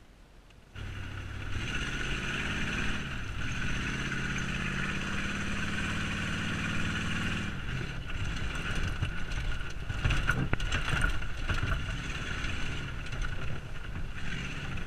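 A lifted Chevy Silverado pickup's engine running under way, heard from inside the cab, coming in suddenly about a second in. From about eight seconds in the sound turns rougher, with a few knocks and rattles around ten to eleven seconds as the truck crosses rough ground.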